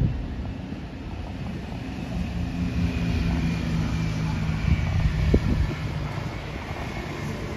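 A truck's diesel engine running as it pulls a semi-trailer past, its steady drone strongest in the middle and easing off near the end, over a low rumble of wind on the microphone.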